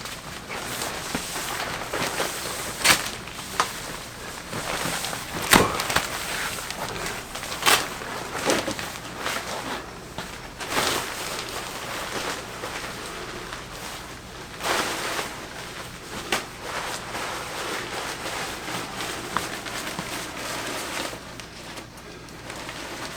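Steady rustling with irregular sharp knocks and clicks, every second or few seconds, as of objects being handled.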